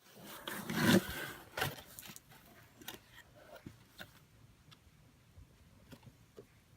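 Cardboard box and packaging being opened and handled: a burst of rustling about a second in, another brief rustle, then scattered light clicks and taps.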